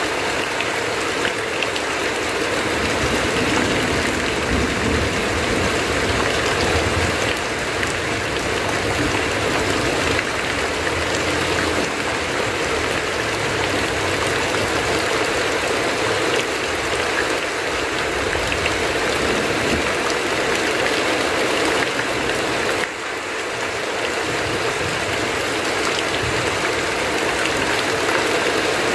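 Heavy rain on a tin roof, with runoff streaming off the roof edge: a steady, dense hiss that dips briefly about three-quarters of the way through.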